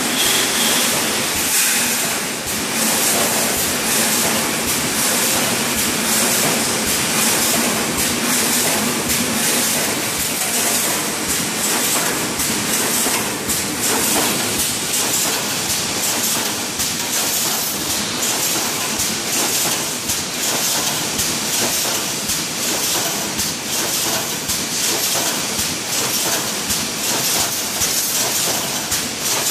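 TJK wire mesh welding machine for 5–12 mm construction mesh running, a steady hiss with a dense, rapid mechanical clatter.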